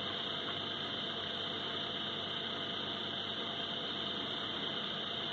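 Steady electrical hum and hiss.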